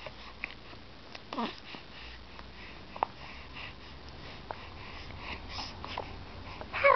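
A young infant breathing and sniffling softly, with one short, soft vocal sound falling in pitch about a second and a half in.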